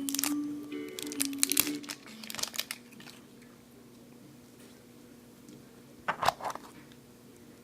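Crinkling and crackling of packaging being handled as a surprise egg is unwrapped, in clusters through the first three seconds and again briefly about six seconds in. Faint background music plays at the start.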